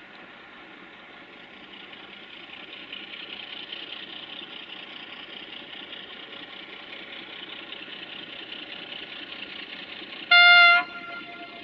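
060-DA (LDE2100) diesel-electric locomotive's Sulzer engine running as it approaches hauling a container freight train, growing louder. Near the end the locomotive's horn gives one short, loud blast.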